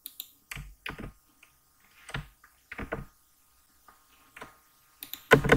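Computer keyboard keystrokes and clicks: single taps a fraction of a second to a second apart, then a denser run of keystrokes right at the end.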